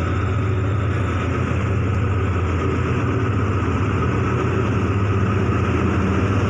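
Diesel-electric locomotive of a Thai express freight train, a GE GEA-class engine, approaching: a steady low engine drone with rail noise, slowly growing louder.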